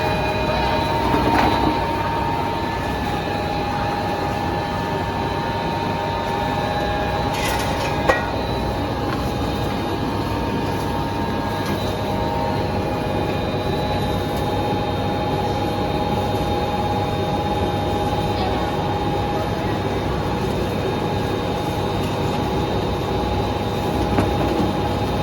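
Sawdust briquette machine running steadily: a constant mechanical drone with several steady whining tones, and a single sharp knock about eight seconds in.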